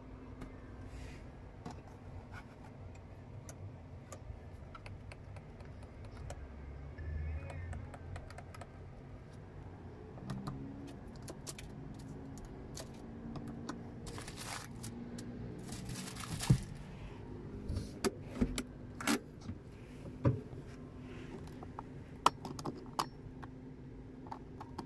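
Sharp plastic clicks and taps as a car's interior switches and trim are pressed and handled, with several loud clicks in the second half, over a steady low hum.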